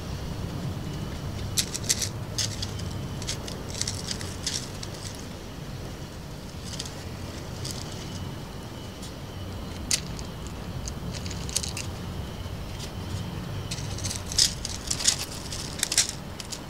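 Scattered light clinks and clicks from an Australian cattle dog's collar tags and claws on timber decking as it creeps up to a pot plant, coming in clusters and loudest near the end, over a low steady background hum.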